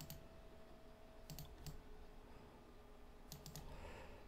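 Faint, scattered computer mouse clicks over near silence: single clicks at first, then a quick group of several about three and a half seconds in.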